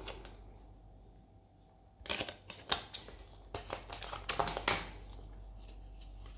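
Blu-ray cases and their packaging being handled: after a quiet start, a run of crinkles and sharp plastic clicks for about three seconds.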